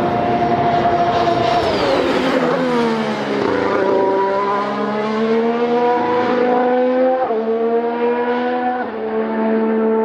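2019 Formula 1 car's 1.6-litre turbocharged V6 hybrid engine running hard. Its pitch drops steeply as the car slows into a corner, then climbs steadily as it accelerates away, stepping down abruptly twice near the end as it shifts up.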